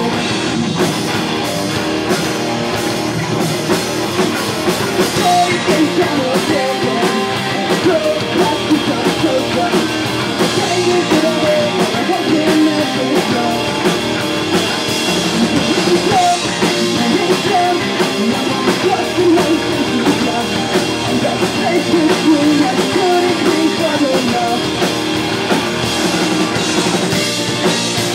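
Live pop-punk rock band playing loud and steady, with a drum kit and electric guitars.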